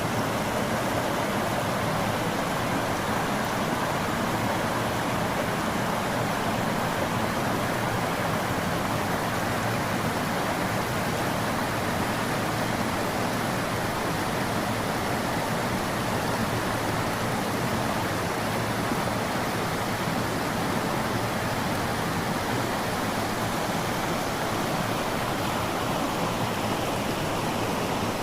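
Mountain stream water rushing in a steady, unbroken flow.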